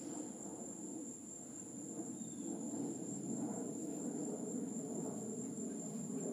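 Steady insect chorus, a constant high-pitched drone, over a low steady outdoor noise.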